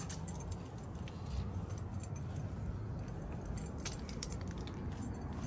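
Scattered light clicks and jingling over a steady low rumble.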